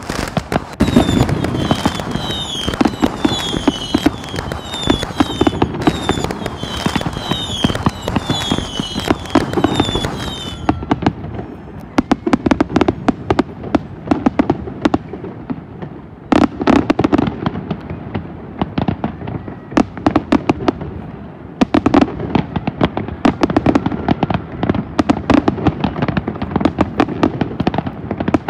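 Fireworks display: a dense, continuous crackle of bursts with repeated deep booms. For the first ten seconds or so, a short high chirping whistle repeats over it, a little faster than once a second.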